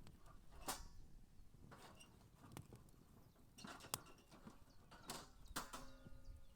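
Quiet, scattered taps and knocks of cooking tools being handled, about half a dozen. Near the end one tap leaves a short ringing tone.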